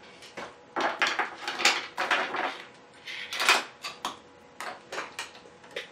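Tools, cables and test leads being handled and moved about on a cluttered workbench: irregular rattling and clattering with sharp clicks, loudest about a second in and again halfway through.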